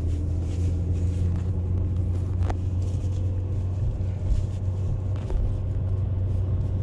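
Car driving along, heard from inside the cabin: a steady low engine and road rumble, with one faint click about two and a half seconds in.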